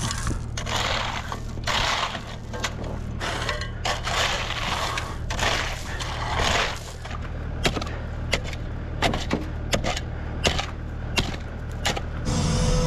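Old concrete being broken up with a breaker over a steady machine engine. Crunching, scraping bursts of about a second each come first, then a run of sharp cracks and knocks, and the engine gets louder near the end.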